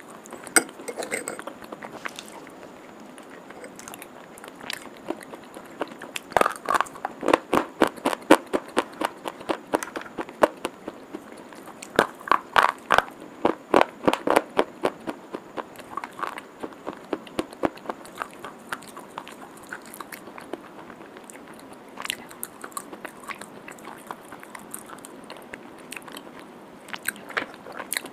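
Biting and chewing of white chalk sticks coated in wet clay paste. Crisp crunches come in quick runs of several a second, densest about six to nine and twelve to fifteen seconds in, with sparser crunches between.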